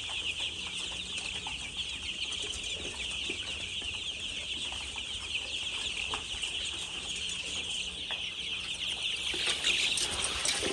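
A large flock of chickens calling together: a dense, continuous chorus of many short, overlapping high-pitched chirps, swelling near the end.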